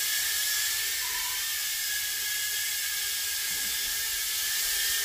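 Toy micro quadcopter's brushed motors and propellers running steadily in flight, a high whine over a hiss.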